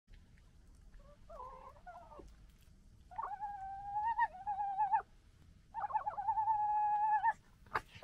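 Red foxes squabbling over food: a short wavering cry, then two long, high, nearly steady whining calls, the second opening with a quick stutter. Two sharp, sudden sounds come near the end as the foxes break apart.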